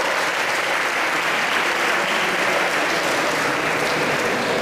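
Audience clapping steadily, a dense unbroken patter of many hands.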